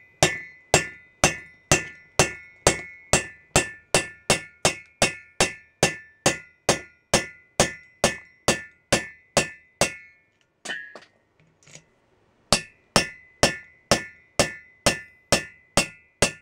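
Steady metal-on-metal hammer blows on a tool set in an air-cooled VW Beetle cylinder head, driving a part out, each blow with a short metallic ring. About two and a half blows a second, stopping for about two seconds a little past the middle, then resuming.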